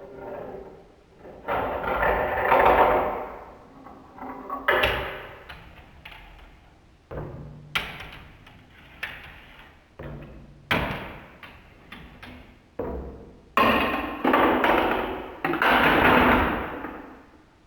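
Glass marbles rolling and rattling down plastic toy marble-run slopes, with a string of about a dozen sharp clacks and knocks as they drop and strike the pieces; the longest rolling runs come about two seconds in and again near the end.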